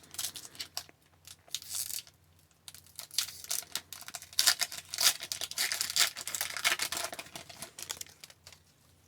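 A trading-card pack's wrapper being torn open and crinkled in irregular bursts of rustling, with a longer, louder stretch of crinkling through the middle.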